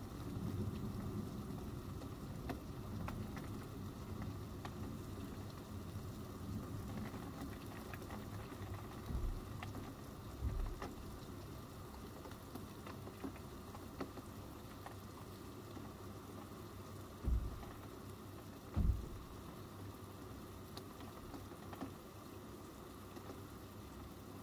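Steady rain pattering, with scattered faint ticks of drops and a low rumble of thunder dying away over the first few seconds. Four short, low thumps stand out, two around ten seconds in and two more about seven seconds later.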